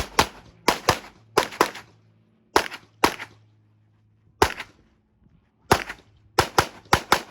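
A semi-automatic pistol being fired on a USPSA practical shooting stage: about a dozen shots, mostly in quick pairs with short pauses between groups, as the shooter engages one target after another.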